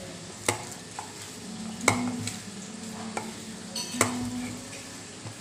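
A hand squishing and kneading thick semolina batter in a steel bowl, a soft wet stirring sound broken by several sharp clicks against the bowl, the loudest about two and four seconds in.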